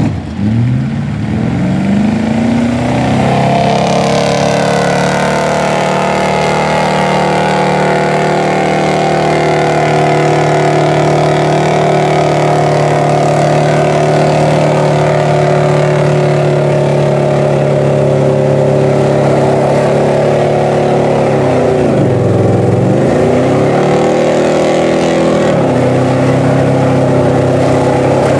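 Engine of a full-size crew-cab 4x4 pickup revving up and held at high revs as the truck churns in deep mud with its wheels spinning. The revs drop off briefly twice in the last third and climb back.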